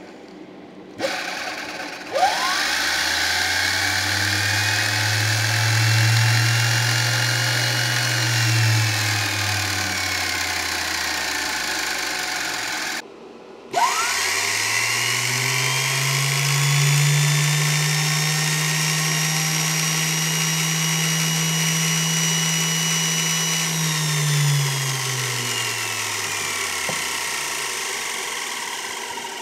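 A washing machine's 220-volt universal motor, running on DC from an inverter welding machine, spins up after a couple of clicks with a rising whine, runs steadily, then coasts down. It does this twice, and the second run settles at a slightly higher pitch.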